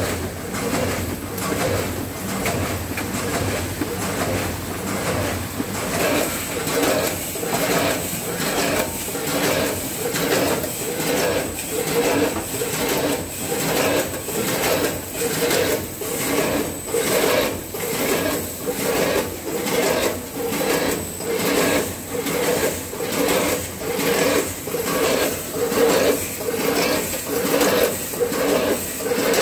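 Multihead weigher packing machine with its Z-type bucket conveyor running: a steady mechanical hum and rattle of product pouring and vibrating through the feeder pans, with a rhythmic rasping pulse about twice a second that grows stronger about six seconds in, over a thin high whine.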